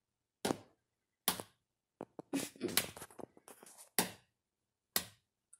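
An egg being tapped against a hard edge to crack it: several short, sharp taps at irregular intervals, a few in quick succession near the middle.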